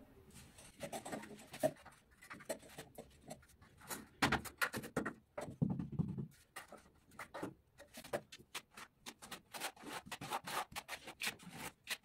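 Hands pressing and rubbing a piece of gypsum board into wet plaster on a concrete wall: a run of irregular short scrapes, rubs and taps.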